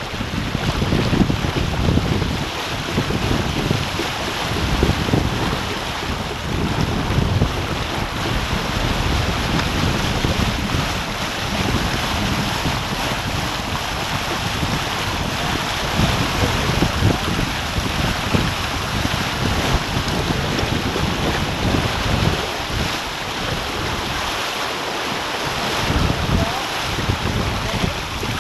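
Wind buffeting the microphone over water rushing along the hull of a Hobie 33 sailboat under sail at speed: a steady wash with gusty low rumbles that rise and fall throughout.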